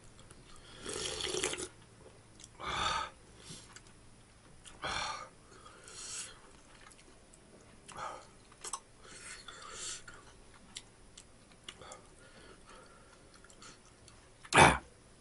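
Slurping spoonfuls of milk-based ramen broth from a metal spoon: several short slurps a second or two apart, the loudest near the end.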